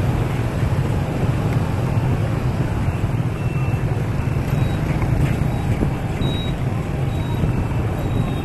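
Steady low rumble of riding on a motorbike through city traffic: the bike's engine and road noise, with other motorbikes around.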